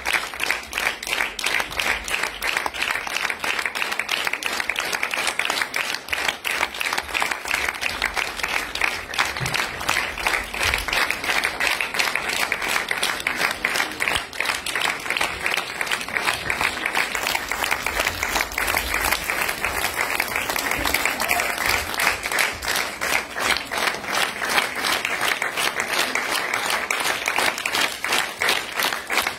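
Theatre audience applauding continuously, dense clapping.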